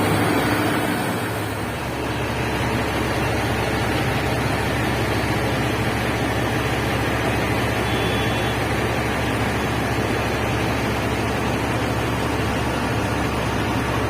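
Heavy diesel mining machinery running steadily: a low, even engine drone with a broad rushing noise over it, easing slightly in the first two seconds and then holding steady.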